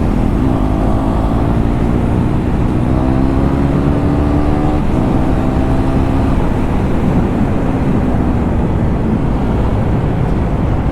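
KTM Duke 390's single-cylinder engine running under way with the exhaust's dB killer removed. The engine note climbs slowly, drops sharply about five seconds in, then runs on steadily.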